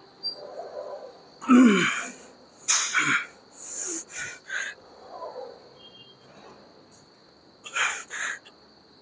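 A man's forceful, breathy exhales during a set of incline dumbbell presses, several short sharp breaths with a strained grunt about two seconds in.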